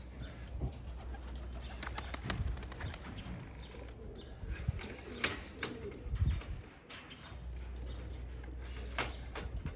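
Racing pigeons at the loft cooing, with some wing flapping and a few sharp knocks, the loudest about five and nine seconds in.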